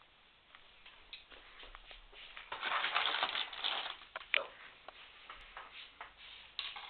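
Snack wrapper crinkling and crackling as it is handled and crumpled, densest for about a second midway, with scattered small clicks and taps around it.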